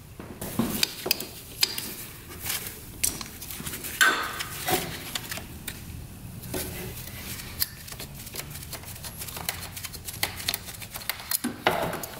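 Irregular small clicks, clinks and knocks of hands working a Polaris Big Boss 6x6 ATV's carburetor loose: the choke is taken out and the carb worked off its mount.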